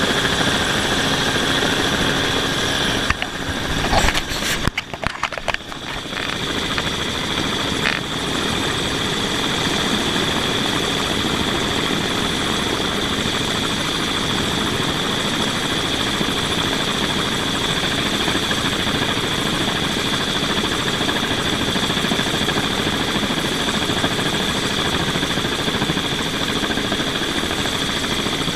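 Camera drone's motors and propellers whining steadily at a high pitch. The sound falters and drops out briefly between about three and six seconds in, then runs on evenly.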